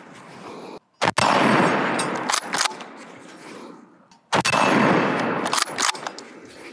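Two rifle shots from a Beretta BRX1 straight-pull rifle in .308 Winchester, about three seconds apart, one about a second in and one past the four-second mark. Each sharp crack is followed by a rumble that fades over about three seconds.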